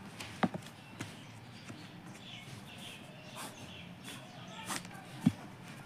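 Ballpoint pen strokes on paper as a line is drawn, with a few light clicks and knocks from the pen and paper being handled; the sharpest knock comes about five seconds in.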